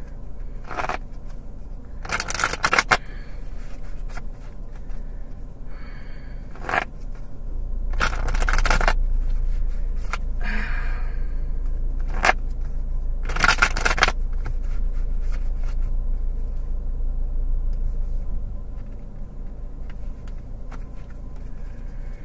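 A tarot deck being shuffled and handled by hand: several short scraping, rustling bursts of cards over the first fourteen seconds or so, then softer handling, over a low steady rumble.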